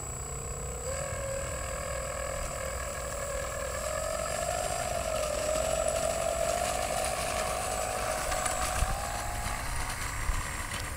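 FMS P-40 RC warbird's NTM Prop Drive 50-50 brushless motor spinning a 14x12 APC two-blade propeller on 5S through its takeoff run: a steady whine with a thin high tone above it, its pitch wavering and climbing as the throttle comes up and stepping higher near the end, growing slowly louder.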